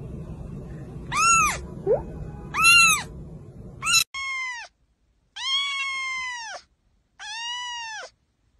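Kittens meowing. First comes a few short, high meows and a brief squeak over background hiss. Then, after a cut, a second kitten gives three longer, clearer meows in a row, each rising and then falling in pitch.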